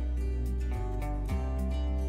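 Background music: guitar strumming over a steady bass line, with the chords changing every second or so.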